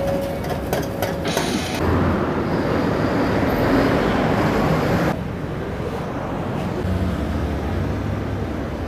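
Street traffic noise: a steady hiss of passing vehicles that changes abruptly about five seconds in to a duller, low rumble.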